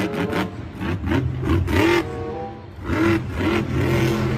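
Monster truck's supercharged V8 engine revving hard in repeated rising and falling surges as the truck launches off a dirt ramp, with a brief drop in level about two and a half seconds in.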